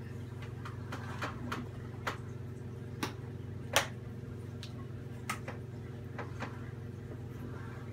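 Sharp, scattered plastic clicks and ticks, the loudest a little under four seconds in, as the screw cap and pull-tab seal are worked off a carton of heavy whipping cream and the small plastic pieces are set down. A steady low hum runs underneath.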